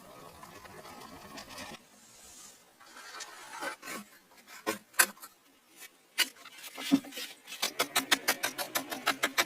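Hand tool work on a metal axe head: scraping and rubbing strokes at first, then scattered sharp taps that quicken into fast, regular tapping of about four strokes a second near the end.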